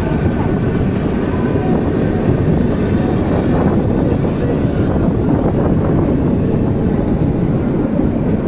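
Kalka–Shimla narrow-gauge toy train running, heard from on board: a steady, loud rumble and rattle of the carriage on the track.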